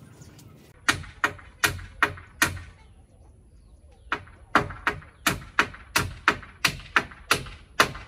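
Hammer striking nails into the wooden roof timbers: a run of five sharp blows, a pause of about a second and a half, then a steady run of about three blows a second.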